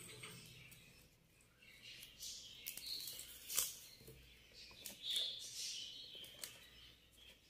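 Plastic basket-weaving wire rubbing and squeaking faintly as it is pulled and twisted through the woven plastic basket, with one sharp click about three and a half seconds in.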